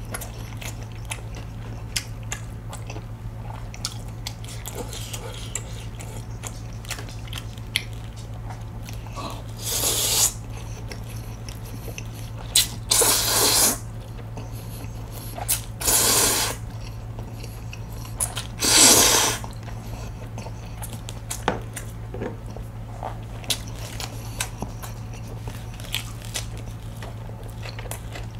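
Jjajang (black bean sauce) noodles slurped from a bowl in four loud, noisy slurps about three seconds apart, with quiet chewing and small clicks between them. A steady low hum lies underneath.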